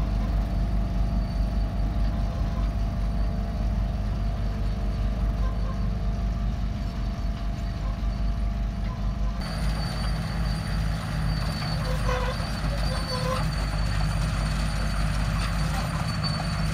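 Diesel engines of a HAMM single-drum road roller and a small crawler dozer running steadily at work. About nine seconds in, the sound turns abruptly brighter, with a thin high whine added.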